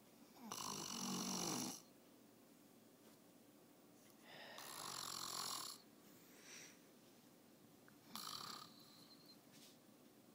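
A sleeping man snoring: three snores, about one every three and a half to four seconds, the last one shorter.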